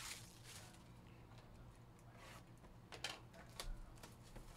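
Near silence with a low steady hum, broken by faint crinkles of plastic wrap on a trading-card box being handled, a short cluster of crackles about three seconds in.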